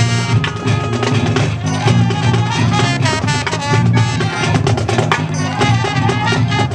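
High school marching band playing its field show: brass and marching drums together, with frequent drum strikes under sustained brass chords.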